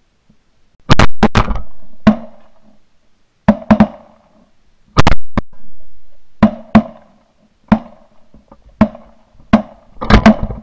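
Volley of shotgun fire from a group of goose hunters: more than a dozen sharp blasts, several in quick doubles and triples, starting about a second in, with the loudest shots near the start and around the middle.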